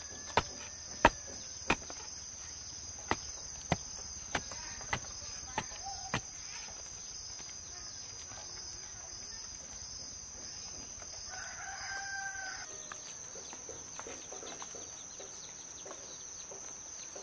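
A rooster crowing once about twelve seconds in. Earlier, a run of sharp knocks comes about every half second and grows fainter, stopping about six seconds in. A steady high insect drone runs underneath.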